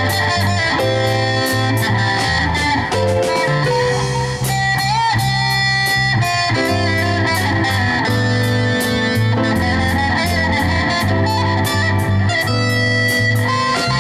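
Live rock band playing an instrumental break without vocals: an electric guitar carries the melody over bass guitar, keyboard and a steady drum-kit beat.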